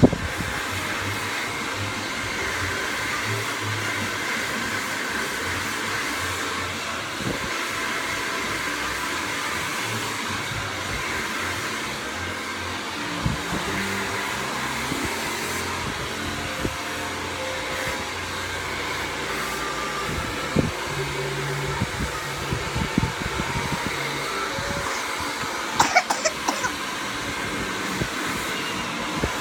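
Hair dryer running steadily, with a scatter of short knocks and clicks in the second half.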